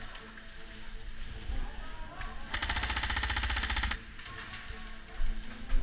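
Airsoft gun firing one full-automatic burst of about a second and a half, a fast even rattle of shots, about two and a half seconds in. A short sharp knock sounds near the end.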